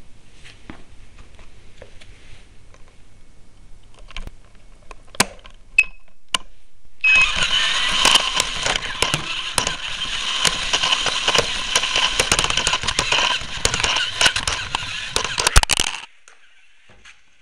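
Small robot's motors and body heard through its onboard camera: a faint low hum with scattered clicks, then about seven seconds in a loud, dense crackling rattle with a steady whine that cuts off suddenly near the end.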